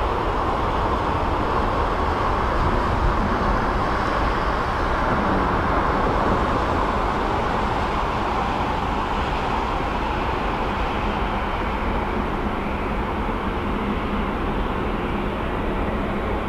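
A Dassault Falcon 8X's three Pratt & Whitney Canada PW307D turbofans running at taxi power, a steady jet noise that holds level throughout.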